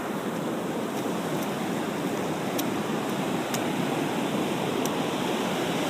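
Ocean surf washing over a rocky shore: a steady rushing noise that slowly builds, without distinct breaks.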